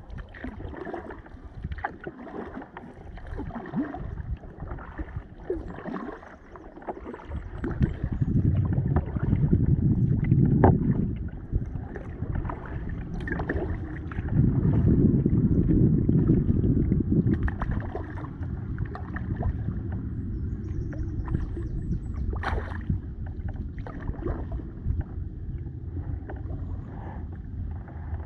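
Kayak being paddled on a river: water sounds from the paddle strokes with scattered small knocks. Two longer stretches of louder low rumble come about a third of the way in and around the middle.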